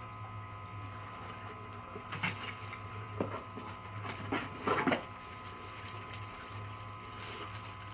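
A few short knocks and rustles of siren-kit parts and packaging being handled, over a steady background hum.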